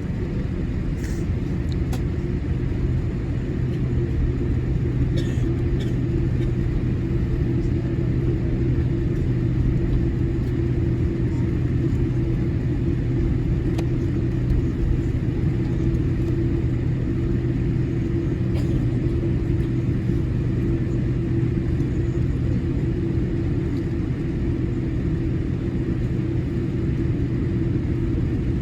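Steady low rumble with a held hum inside the cabin of a Boeing 787-8 Dreamliner taxiing, engines at idle, with a few faint ticks.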